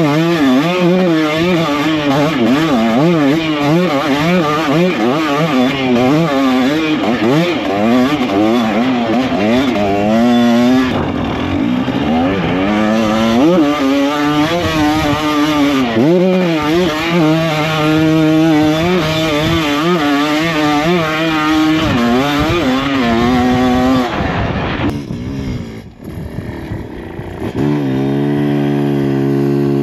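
A 2024 KTM 300XC's single-cylinder two-stroke engine, revving up and down constantly as the throttle is worked on a steep dirt trail. About 25 seconds in the engine note drops away briefly, then a steady idle follows near the end.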